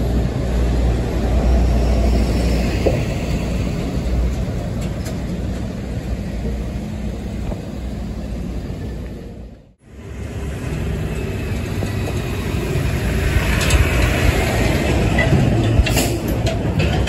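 Heavy diesel trucks passing close in city traffic, their engines making a steady low rumble. The sound drops out for a moment about two-thirds through, then a truck towing a flatbed trailer rolls by with several sharp metallic clanks near the end.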